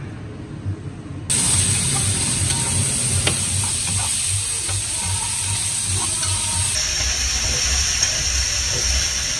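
Food sizzling in a hot pan: a steady hiss that starts suddenly about a second in, over a low rumble.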